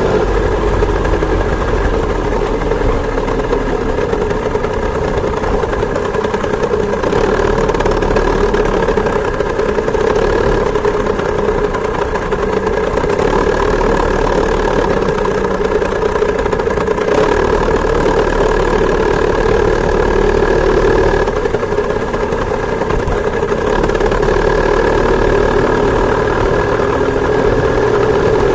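Two-stroke chainsaw engine on a homemade moped, running steadily at an even pitch.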